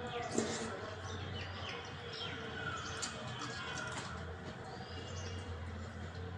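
Birds chirping and twittering in the background over a steady low hum, with faint clicks from eating rice by hand.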